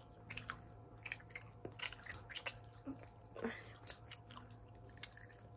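People chewing sour candy with their mouths close to the microphone: faint, irregular clicks and small smacking sounds.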